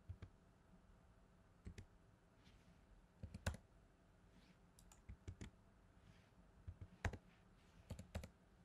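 Faint, scattered clicks of computer keys and mouse buttons, in small clusters of two or three, as rotation shortcuts are typed and the mouse is clicked.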